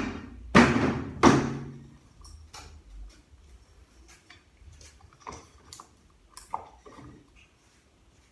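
Metal transmission parts knocking and clanking as they are handled and set down on the bench: three loud clanks with a short ring in the first second and a half, then lighter taps and clicks.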